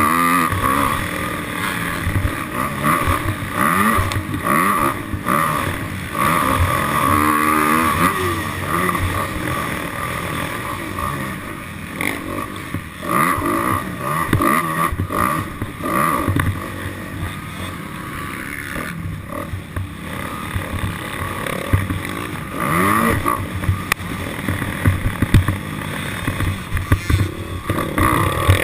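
Motorcycle engine being ridden hard, revving up and down again and again as it climbs through and drops back down the gears.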